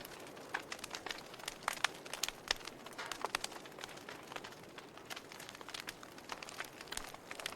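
Wood fire burning in a fireplace, crackling and popping with many irregular sharp snaps over a soft steady hiss.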